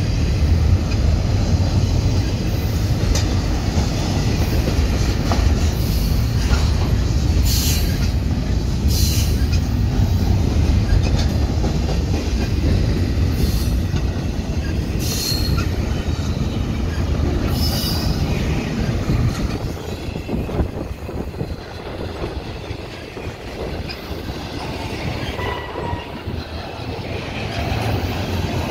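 Double-stack intermodal freight train's well cars rolling past close by: a steady low rumble of steel wheels on the rails, broken by short, high-pitched wheel squeals every few seconds. The rumble eases somewhat about two-thirds of the way through.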